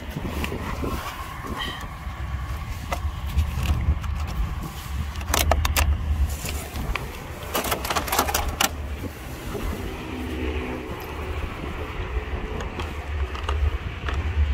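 A thin clear plastic food container crackling as a hand opens and handles it, in two bursts about five and eight seconds in, over a steady low rumble.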